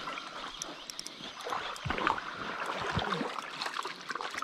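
Water splashing and gurgling in a shallow stream, with a few irregular knocks and rustles.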